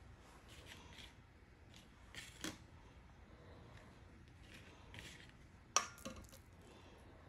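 Faint rustling and light knocks of hands rolling fresh pasta dough and handling a metal spoon on a plastic cutting board. There are a few sharp clicks: a pair about two and a half seconds in, and the loudest near six seconds with a brief metallic ring.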